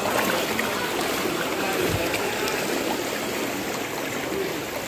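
Fast-moving floodwater rushing through a street, a steady noise of flowing water.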